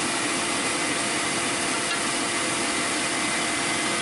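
Steady rushing noise with a faint hum, from air being blown into a homemade wheel-rim forge's burning wood and charcoal fire.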